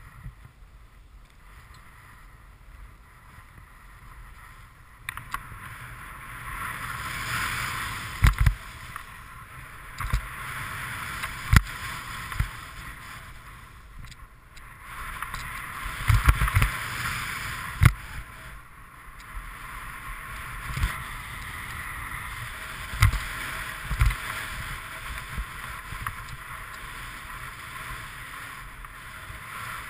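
Snowboard sliding and carving down a snowy slope: a hiss of the board on snow that starts a few seconds in and swells and fades with the turns, broken by sharp knocks from bumps now and then.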